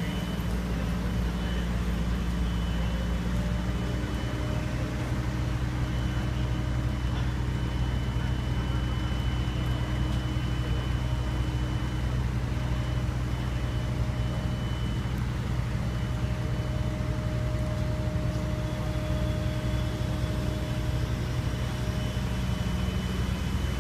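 Heavy mobile crane's diesel engine running steadily under load while lifting a bridge span, a continuous low drone whose note shifts lower about four seconds in.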